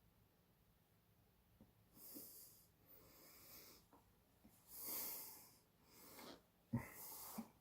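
A man breathing audibly through his nose in several separate breaths, with a sharp click near the end.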